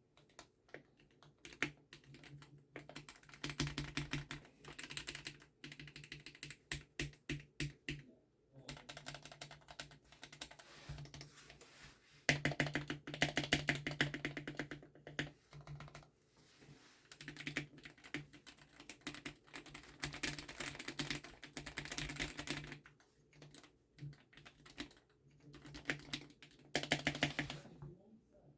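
Typing on a GamaKay K61 mechanical keyboard fitted with freshly lubed Gateron Yellow linear switches. The keystrokes come in quick runs of clicks broken by short pauses.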